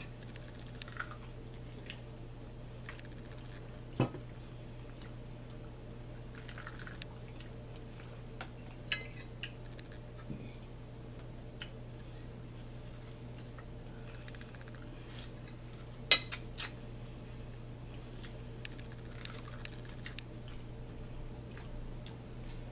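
Mealtime eating sounds: chewing, and a metal fork clinking on a plate with a few sharp clinks, the loudest about four seconds in and about sixteen seconds in, over a steady low hum.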